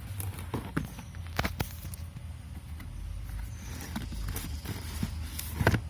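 Box packaging and contents being handled: scattered light taps and clicks, with a louder knock near the end, over a low steady hum.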